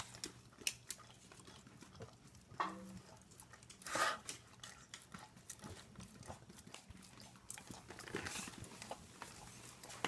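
Dog eating food from a stainless steel bowl: irregular chewing and smacking with many small clicks, loudest about four seconds in.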